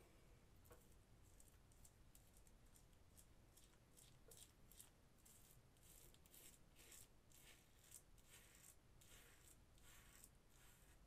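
Double-edge safety razor (Parker semi-slant) scraping through lather and stubble on a scalp in short, faint strokes. The strokes are sparse at first and come about twice a second from roughly four seconds in.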